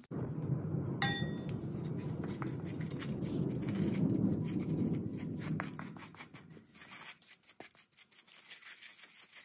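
Food being mixed and mashed in a stainless steel bowl: a steady low rustling scrape for about six seconds with a single metallic clink about a second in, then thinning to scattered light taps.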